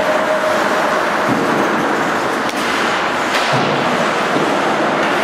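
Ice hockey play heard from behind the rink glass: a steady wash of noise from skates scraping the ice, with two sharp knocks of stick or puck a little under a second apart in the middle.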